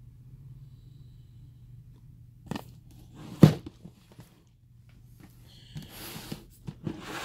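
Handling of a shrink-wrapped cardboard model-kit box: a few light clicks, then one sharp knock about three and a half seconds in, the loudest sound. Near the end the plastic wrap crinkles, over a steady low room hum.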